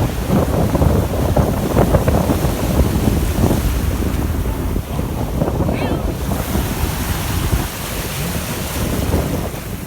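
Wind buffeting the microphone in uneven gusts over the wash of surf on the beach.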